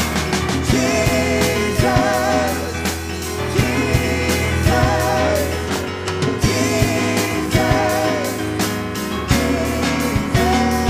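Live worship band playing: a singer's drawn-out, wavering sung phrases come every couple of seconds over a steady drum-kit beat and bass.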